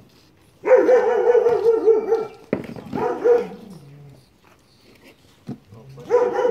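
A dog whining in long, wavering cries: one lasting about a second and a half near the start, a shorter one around three seconds in that slides down at its end, and another beginning near the end.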